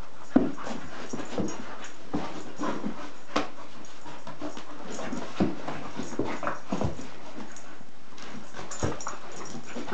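A dog playing and mouthing at a person, making short irregular sounds and clicks. The loudest is a sharp click about half a second in.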